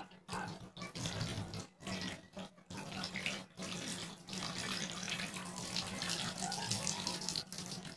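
Water running from a plastic tap into a basin, splashing unevenly as cupped hands catch it and bring it to the face.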